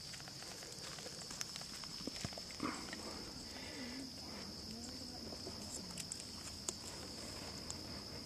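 Insects droning steadily at a high pitch, with scattered small clicks and knocks. From about two and a half seconds in, a low wavering voice-like sound lasts about three seconds.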